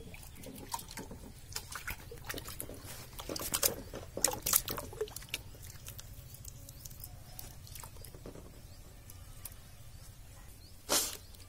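Hands mixing cow dung into water in a bucket, making wet squelches and splashes: the slurry being prepared for coating a floor. The splashes come irregularly, in a cluster a few seconds in, with one louder burst near the end.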